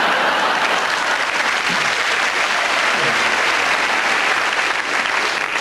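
Theatre audience applauding: dense, steady clapping.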